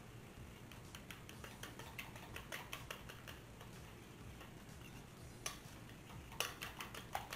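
A metal utensil stirring a sticky honey-soy glaze in a stainless steel bowl, ticking lightly and unevenly against the bowl, with a few louder clinks near the end.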